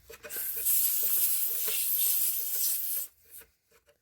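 Air hissing from a car tyre's valve stem for about two and a half seconds as the inflator's hose chuck is put on, cutting off abruptly once the chuck seals.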